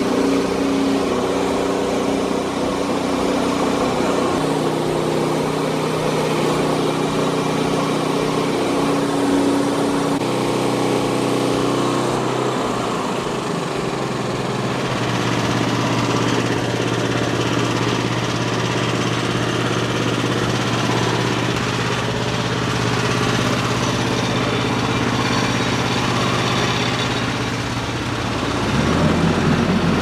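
Small gasoline engine of a Frontier OS23 portable bandsawmill running steadily; its note changes about twelve seconds in and again near the end.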